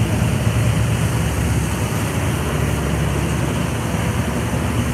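Dive boat's engine running steadily under way, with a steady rush of wind and water.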